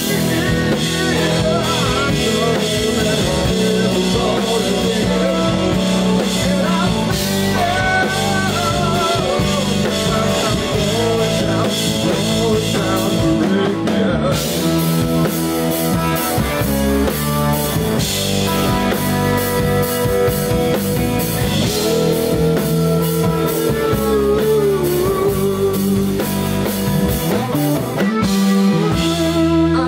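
Live rock band playing: electric guitar, electric bass guitar and drum kit. The music is loud and continuous, with a brief break in the cymbals about 14 seconds in.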